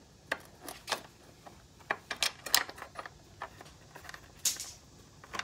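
Irregular small metallic clicks and rattles of a bolt and washer being worked out by hand from a body bracket, the bolt spinning because its welded-in lock nut has broken loose, with a brief louder scrape about four and a half seconds in.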